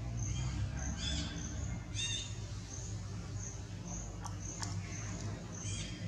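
Short high-pitched animal calls, three of them: about a second in, two seconds in and near the end. Under them a higher chirp repeats about twice a second, over a steady low hum.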